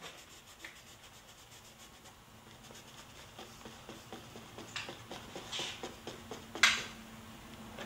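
Paintbrush bristles scratching and rubbing on canvas in short, quick strokes. The strokes are faint at first, grow busier and louder, and the sharpest one comes near the end.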